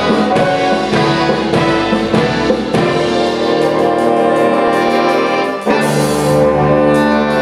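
Jazz big band playing, with the brass section holding full chords over drum-kit hits. About five and a half seconds in, the band moves to a new, fuller chord with heavy low brass.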